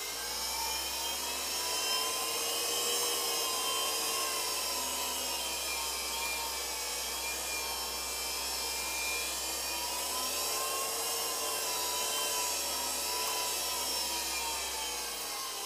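Used DC electric motor spinning unloaded on a bench, fed from 24 volts through a motor controller, giving a steady whine. Its pitch rises and falls gently a few times as the throttle is varied.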